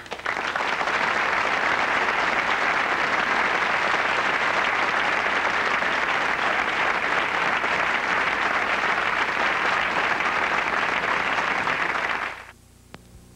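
Studio audience applauding steadily, dying away sharply about a second before the end.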